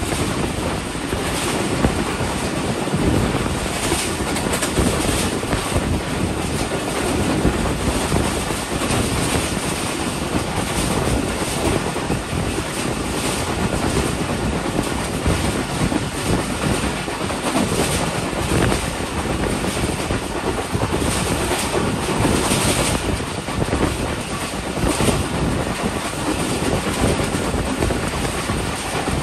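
Passenger train running at speed: a steady noise of wheels on the rails, with scattered sharper clicks from the track.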